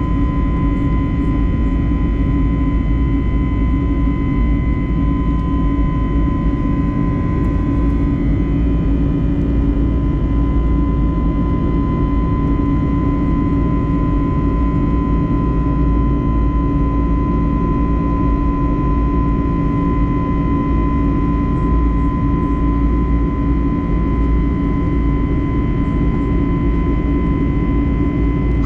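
Airbus A321neo cabin noise: the jet engines run steadily, a constant high whine over a low rumble, with no change in power.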